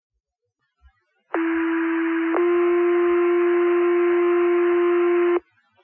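Fire pager two-tone alert over a radio channel: a steady tone of about one second steps straight into a second, slightly louder tone held for about three seconds, then cuts off. It is the alerting tone that sets off the firefighters' pagers before a dispatch.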